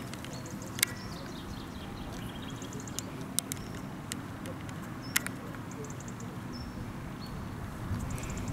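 Outdoor ambience: a low steady rumble with small birds chirping now and then, and a few sharp clicks, the loudest just under a second in and about five seconds in.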